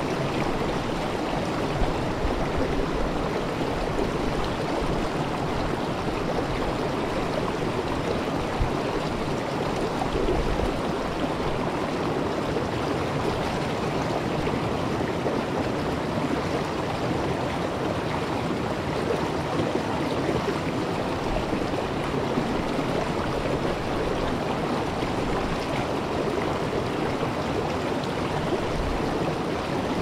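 Rocky river rapids, water rushing steadily over boulders into a pool, a continuous even rush with no change.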